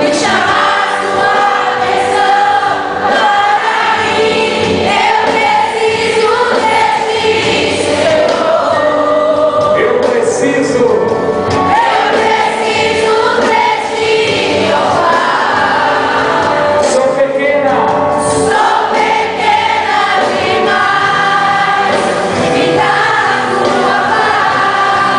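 A worship song sung live by a group of voices, with the church's band playing along.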